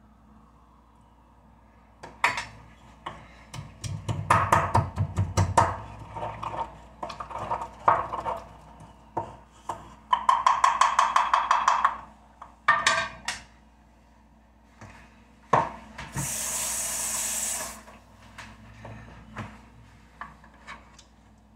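Kitchen handling noises: a run of knocks, clinks and scrapes of a metal spoon and dishes on a wooden counter. There is a scrape lasting about two seconds around ten seconds in and a steady hiss of about a second and a half later on.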